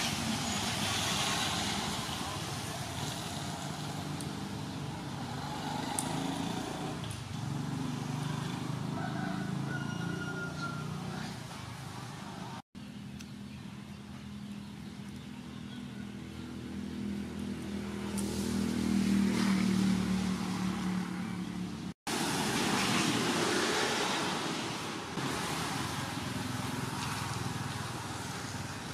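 Fingers peeling the stringy fibres off pumpkin-flower stems against steady outdoor background noise. A low engine hum swells and fades about two-thirds of the way through, and the sound cuts out abruptly twice.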